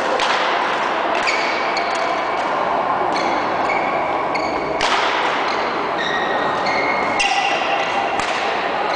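Badminton rally in a large sports hall: sharp racket strikes on the shuttlecock, one every one to two seconds, each ringing on in the hall, over a steady din of play from the surrounding courts.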